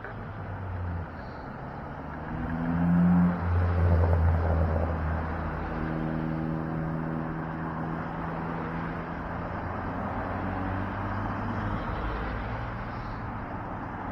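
Street traffic: a motor vehicle's engine running close by, loudest about three to four seconds in, then a steady low engine hum over a constant noisy rumble.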